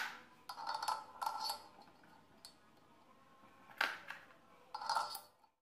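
Steel washers clinking against each other and the grinder's steel shaft as they are stacked on as pulley spacers: a handful of sharp metallic clicks, each with a short ring.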